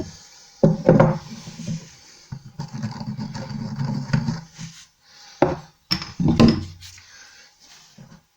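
Knocks and handling of wood and tools, with about two seconds of a drill-driven hole saw cutting through the chipboard back panel of a kitchen base unit in the middle, opening up a pipe hole.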